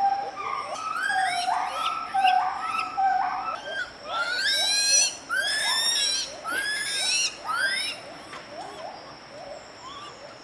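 Gibbon song: a series of hooting notes, each swooping upward in pitch, that rise, quicken and grow louder to a climax near the middle, then tail off into fainter calls. It is a territorial call.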